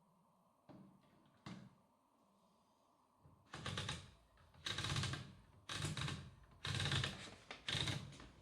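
Hammond Multiplex typewriter being operated: two light clicks, then a run of heavier mechanical clatters at about one a second.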